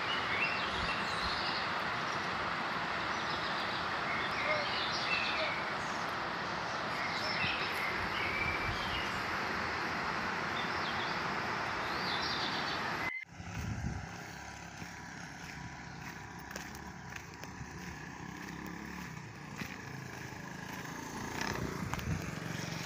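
Outdoor ambience: a steady rushing noise with short bird chirps now and then. About 13 seconds in it cuts off abruptly to a quieter background with a faint steady hum.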